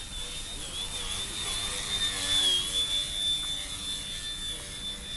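Electric motor and propeller of a small foam RC aerobatic plane (Yak-55M) whining at a high pitch that wavers up and down with the throttle, growing louder for a moment about two seconds in.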